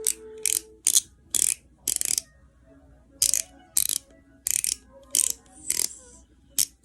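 Cosmetic brow pencil being twisted in a small handheld sharpener: about eleven short, separate scraping strokes, with a pause of about a second partway through.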